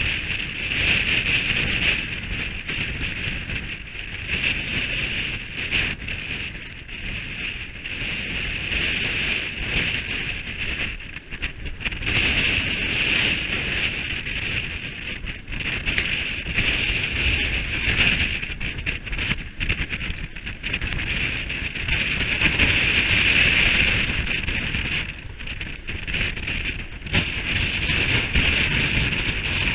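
Gale-force wind, about 38 knots gusting to 45, blowing across a sailboat's deck: heavy wind buffeting on the microphone under a high rushing hiss that swells and eases with the gusts, with breaking seas washing alongside.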